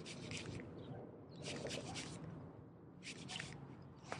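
Faint handling noise from working a spinning rod and reel: short bursts of rustling and rubbing that come in three clusters, over a low steady rumble.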